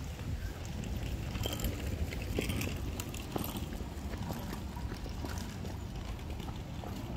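Wind buffeting the microphone, a steady low rumble, with a few faint scattered clicks.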